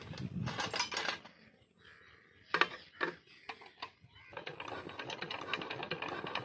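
Metal hand tools and engine parts clinking and clicking as a small stationary engine is worked on by hand. A few sharp knocks come around the middle. Near the end, a quick, steady run of ticking sets in.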